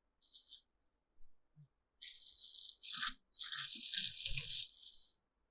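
Packaging rustling and crinkling as the contents of a speaker-set box are handled and unpacked: a short burst near the start, then longer stretches from about two seconds in, with a few soft knocks.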